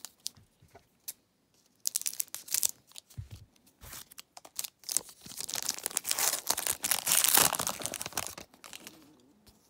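Foil trading-card pack being handled and torn open: crinkling of the metallic wrapper, with the loudest tearing and crinkling in the second half as the foil is pulled apart around the cards.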